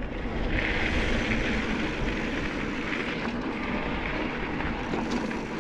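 Steady rush of wind on the microphone and tyre noise from a bicycle rolling along a dirt track.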